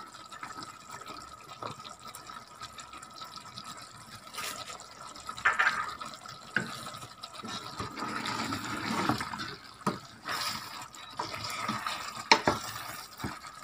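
Honey-and-spice sauce of a mrouzia bubbling in a steel pot of meat and almonds, with a few sharp knocks and scrapes of a wooden spatula against the pot as it is stirred so it doesn't stick.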